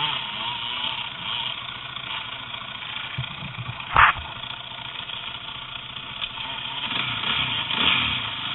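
A vehicle running, with a rough steady mechanical noise and one sharp loud knock about four seconds in. It is the noise that the owner considers bad.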